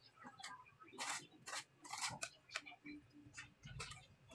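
Plastering trowel scraping wall putty, short scrapes a couple of times a second at an uneven pace as putty is loaded and spread.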